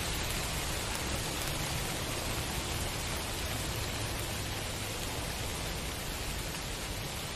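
Steady rainfall, an even hiss with a low rumble beneath it.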